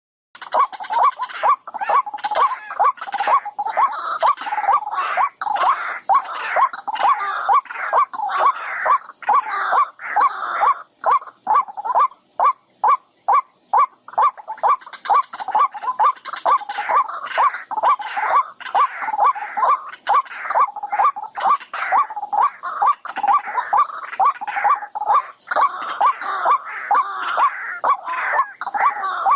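Animal cries repeating rapidly and without let-up, several a second.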